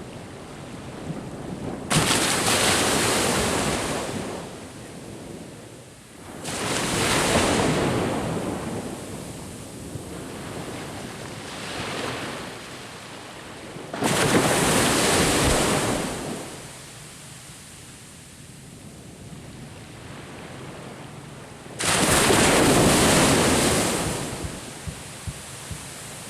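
Surf breaking on a beach: four waves crash in turn, each arriving suddenly and washing out over two or three seconds, with a steady wash of water between them.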